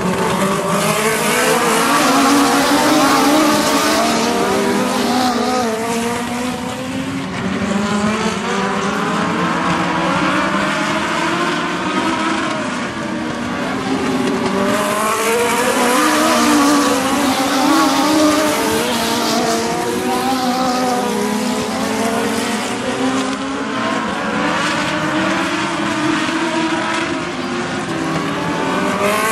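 A pack of Legends race cars at racing speed, their motorcycle engines revving up and easing off so that the overlapping engine notes keep rising and falling in pitch.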